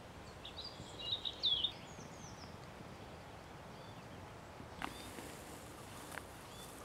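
Quiet outdoor background hiss with a few short, high bird chirps in the first two seconds, then two faint clicks later on.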